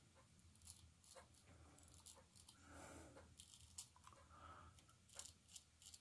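Straight razor shaving through lathered beard stubble: a series of short, faint scrapes.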